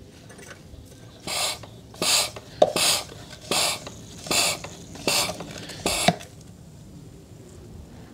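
Hand-pumped Mityvac fluid extractor being pumped to draw power steering fluid out of the pump reservoir: seven short strokes, just under a second apart, from about a second in to about six seconds in.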